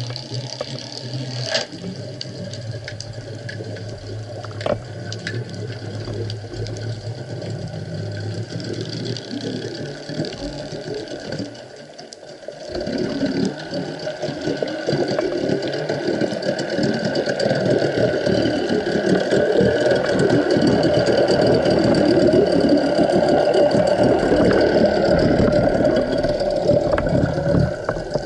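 Underwater sound: a boat's motor hums steadily and dips at about twelve seconds. A louder, dense rushing and crackling of water then takes over.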